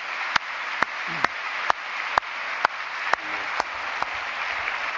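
Audience applause: a steady patter of many hands. A set of louder single claps stands out from it at about two a second and stops about four seconds in.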